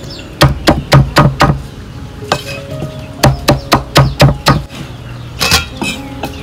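Cleaver chopping banana blossom on a round wooden chopping block: two quick runs of five or six sharp chops, about four a second, with a single chop between them and one more near the end.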